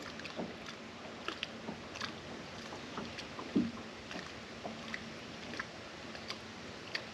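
Quiet handling of a caught fish and fishing tackle on a boat deck: scattered small clicks and taps, with one louder knock about three and a half seconds in, over a faint steady low hum.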